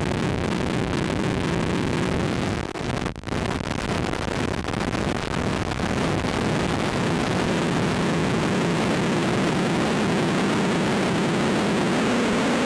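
Harsh noise from an effects-pedal chain: a Lost Soul feedback looper into a Krackatone switch into a Sketchy Sounds Gorantula sub-octave synth fuzz, giving a dense, steady wash of fuzz and feedback. It drops out briefly about three seconds in. Near the end a low drone slowly rises in pitch.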